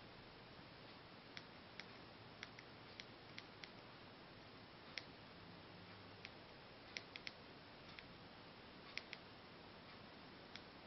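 Remote control buttons being pressed: a string of short, sharp clicks at an uneven pace, some in quick pairs or threes, over a faint steady hiss.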